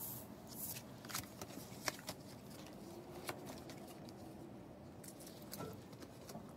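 Quiet room tone with a few faint, sharp clicks and light rustling from paper, cards and the phone being handled on a lab bench.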